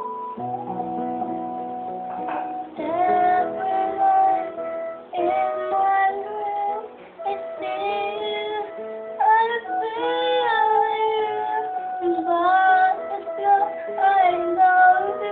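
A young girl singing a song over instrumental backing music with guitar. The accompaniment plays alone at first, and her voice comes in about three seconds in.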